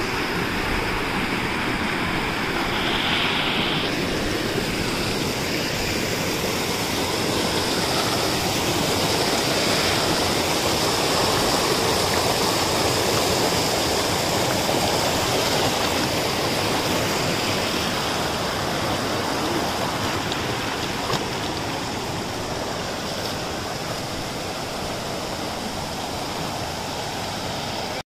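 Mountain stream rushing over rocks in white-water rapids: a steady wash of water noise.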